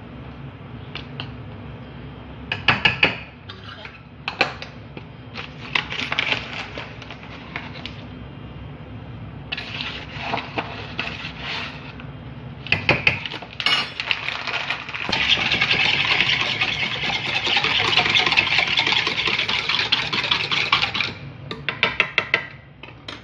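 A spoon clinking and scraping against a saucepan and a tin while powder is scooped into the pan, in short clusters of knocks. Then a whisk beats the milky basbousa batter in the saucepan in a steady scratchy run of about six seconds, followed by a few more clinks near the end.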